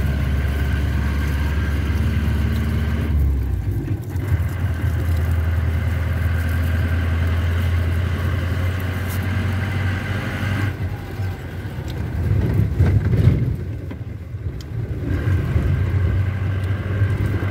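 Car engine and road noise heard from inside the cabin while driving: a steady low drone whose pitch shifts about three seconds in, with a louder, rougher rumbling stretch about two-thirds of the way through.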